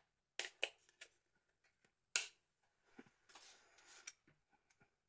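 A few short, sharp plastic clicks and snaps as a SIM chip is pressed out of its plastic carrier card, followed by a few faint light ticks.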